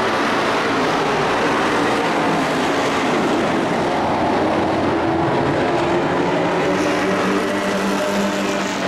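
Several dirt-track pickup race trucks' engines running at racing speed together, a steady loud mix of engines whose pitches drift slightly as the trucks move around the oval.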